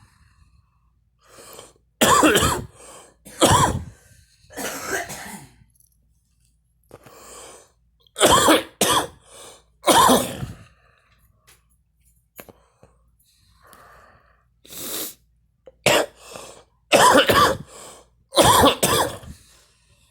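A young woman coughing hard while smoking. There are about ten loud coughs in three fits, with quieter breaths and throat sounds between them.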